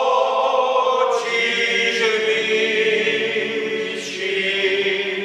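Men's choir singing a Moravian folk song a cappella in several-part harmony, on long held notes, the last chord dying away at the end.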